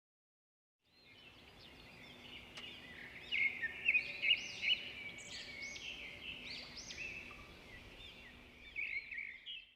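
Birds chirping: a dense run of quick chirps that glide up and down in pitch, starting about a second in and cutting off suddenly near the end.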